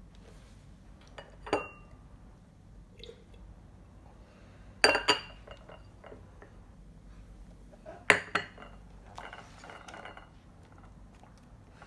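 Clinking of dishes: one ringing clink, then two pairs of clinks a few seconds apart, with a softer clatter after them.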